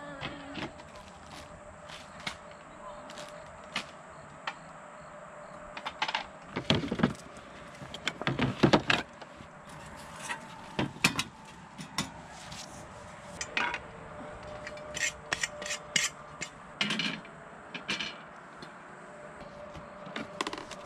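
Camp kitchen gear being handled: wooden boards and metal cookware and stove parts knocking and clattering against a plastic crate as they are unpacked and set up. The knocks come irregularly, with the loudest clatter a little past the middle.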